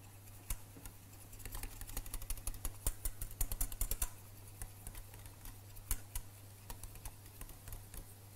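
Wire whisk clicking rapidly against the sides of a small stainless-steel saucepan, whisking cream as cheese melts into it, with the clicks thickest about two to four seconds in. A low steady hum runs underneath.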